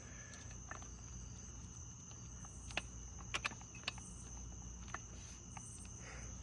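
Crickets trilling steadily at a high pitch, with a few sharp clicks in the middle, three of them close together.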